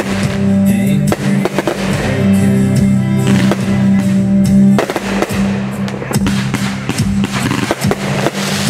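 Fireworks shells bursting and crackling over music with a steady bass line. The pops and crackles come frequently and are densest in the second half.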